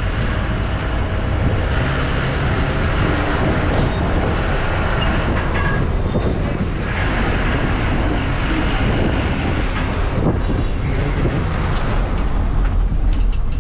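Engine and cabin noise of a TNSTC state bus heard from inside near the front as it moves slowly through a bus station. The noise is a steady low hum with no clear change in level.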